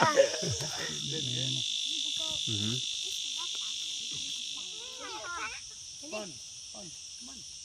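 Steady high-pitched drone of insects, with faint children's voices now and then.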